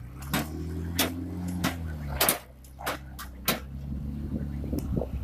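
An engine or motor running steadily, with a series of about six sharp knocks roughly every half second to second over it.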